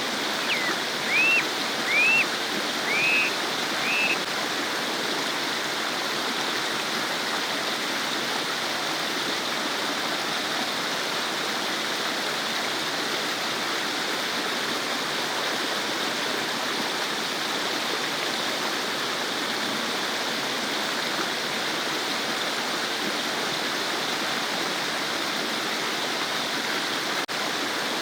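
Babbling stream, water flowing and gurgling steadily. In the first few seconds a bird gives about five short, arching chirps over it.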